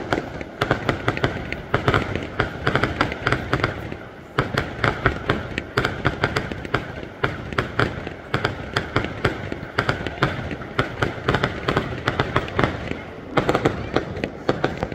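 Fireworks display: a dense run of sharp pops and crackles from bursting aerial shells, many a second, easing briefly about four seconds in and again near the end.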